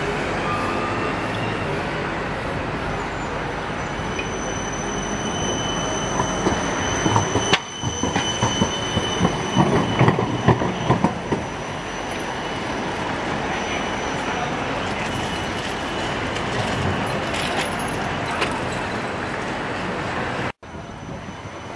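Amsterdam low-floor tram, a Siemens Combino, rolling past close by on street track, its steel wheels giving a faint high squeal. About seven seconds in it clatters loudly for several seconds as it runs over a junction of crossing rails.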